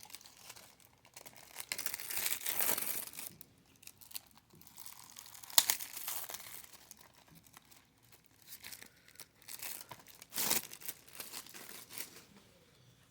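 Plastic shrink-wrap being torn and peeled off a DVD case, in irregular crinkling and tearing rustles with a sharp crackle near the middle and quieter pauses between.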